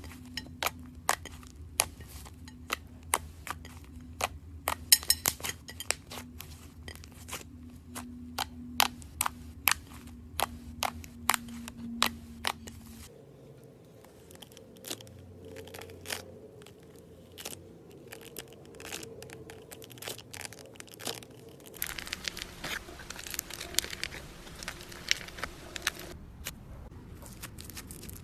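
Hands playing with slime: a fast run of sharp pops and clicks as fingers poke and press into it, fewer in the middle, and a denser crackling stretch near the end.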